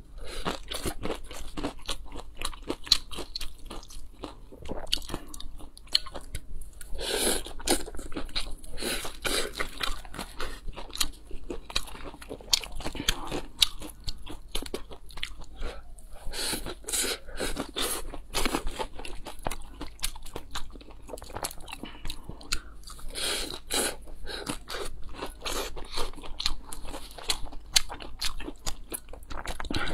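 Close-miked chewing and biting of a crisp coriander-and-zucchini pancake: a dense, irregular run of crunches and wet mouth clicks.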